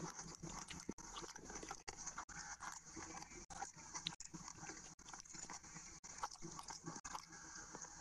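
Close-miked chewing and wet mouth smacking of a person eating curry and rice by hand, with small irregular clicks and squelches from food being handled.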